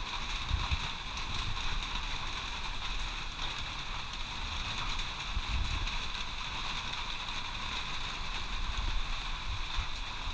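Heavy rain falling steadily, a constant even hiss, with occasional low wind rumbles on the microphone.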